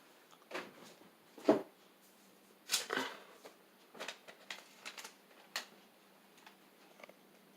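A string of irregular clicks and knocks, the loudest a single thump about a second and a half in, with a burst of clicks around three seconds and lighter ones after.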